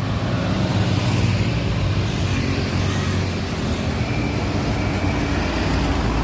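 A bus engine running close by amid road traffic noise: a steady low rumble with no horn sounding.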